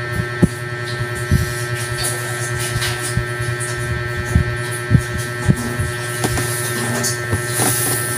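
Steady low electrical hum with a few faint steady tones above it, broken several times by short knocks and thumps.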